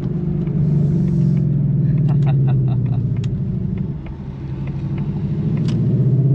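2024 Mustang GT's 5.0 V8 running through a Steeda H-pipe with the active exhaust in track mode, a steady deep rumble while driving off. The note eases about four seconds in, then builds back up as the car accelerates; a few sharp ticks come between about two and three seconds in.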